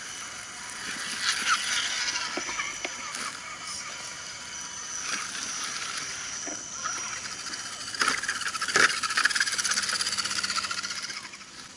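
Scale RC crawler trucks driving over a rocky trail past the camera: a high electric-motor and gear whine with tyres clicking and crunching on stones. It swells about a second in and is loudest from about eight seconds, as a truck passes close, then fades just before the end.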